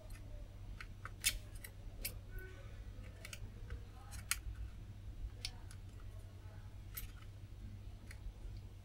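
Metal tool tips, hot tweezers and a soldering iron, clicking against an SMD MOSFET on a laptop motherboard as the tweezers try to grip and lift it while it will not come free: half a dozen faint, sharp clicks spread out over a low steady hum.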